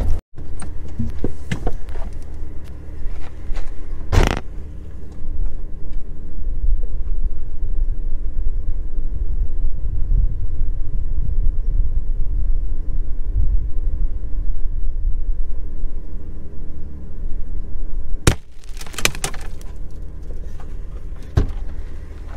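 Jeep Cherokee XJ driving on a dirt road: a steady low rumble of engine and tyres. A sharp knock comes about four seconds in, and another about eighteen seconds in, followed by a short run of rattling clicks.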